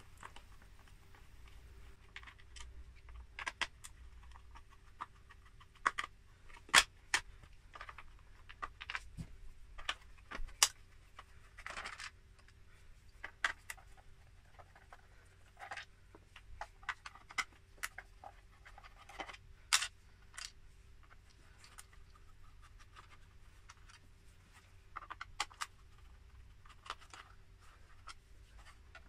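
Irregular small clicks and short scrapes of a T8 Torx screwdriver backing the screws out of a Dyson DC24's brushroll housing, with screws and the tool being handled. A faint steady hum sits underneath.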